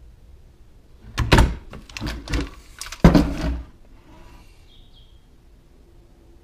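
Several sharp knocks and clacks from a Saiga AK-pattern rifle being handled and moved on a wooden workbench, starting about a second in and lasting some two and a half seconds.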